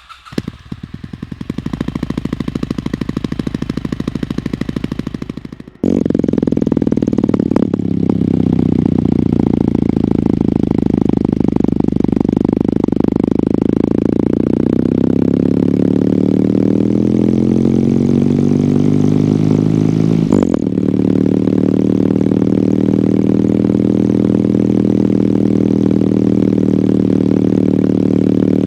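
Kawasaki W800's air-cooled parallel-twin engine running through its stock exhaust. About six seconds in it suddenly becomes much louder and steady, its pitch shifts through the middle, and there is a brief break near 20 seconds.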